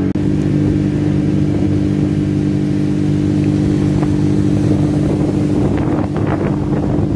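Motorboat engine running steadily at cruising speed, with water rush and wind on the microphone, and a few short knocks about six seconds in.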